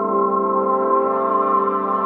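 Background music: sustained synthesizer-like chords held steady, changing slowly, with no beat.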